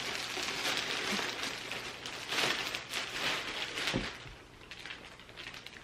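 Plastic packaging rustling and crinkling as items are pulled from the box, with a soft thump about four seconds in, then quieter handling.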